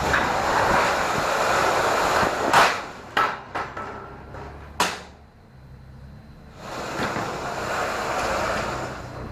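Forklift loading pallets into a truck trailer: a rumbling run across the trailer floor, a handful of sharp knocks and clanks around the middle, then another rumbling run.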